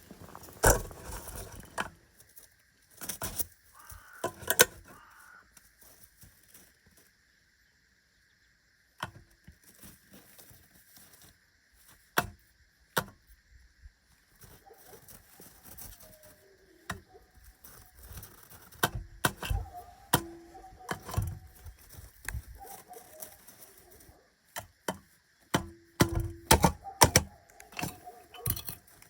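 Common raven making short, soft calls amid many sharp clicks and knocks, which come thickest near the end.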